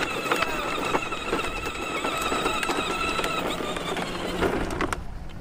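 A child's ride-on toy ATV rolling across asphalt, its small electric motor giving a steady whine that stops about three seconds in.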